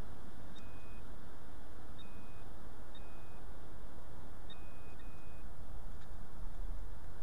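Short electronic beeps of one steady pitch from metal-detecting gear, five in all with the last two back to back, signalling metal in the dug hole. Under them runs a steady low background hiss.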